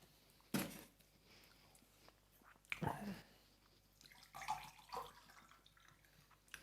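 Close-up eating sounds: a few short, wet mouth noises of chewing and biting into spicy blue crab salad, coming in separate bursts with quiet between them.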